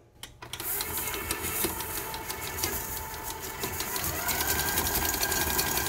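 Electric stand mixer switching on about half a second in and running at low speed, its beater creaming butter with brown and white sugar in a steel bowl. Its motor whine rises slightly about four seconds in.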